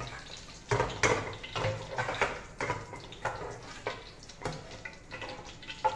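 Metal slotted spoon scraping and clinking against an aluminium karahi in irregular strokes as fried onions are scooped out of the hot oil, with faint sizzling underneath.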